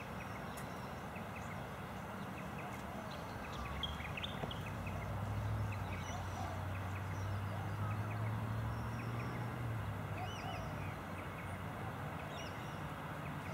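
Outdoor ambience: small birds chirping here and there over a steady hiss, with a low engine hum that comes in about four seconds in and fades out around ten seconds.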